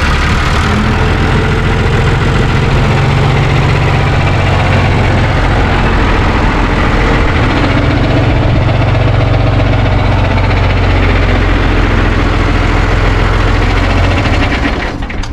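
John Deere 2840 tractor's six-cylinder diesel engine running steadily, until it cuts off sharply near the end.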